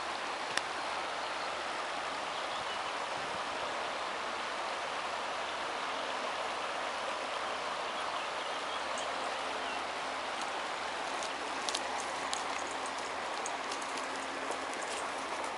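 River water running steadily over a shallow riffle, an even rushing hiss. A few sharp clicks come through near the end.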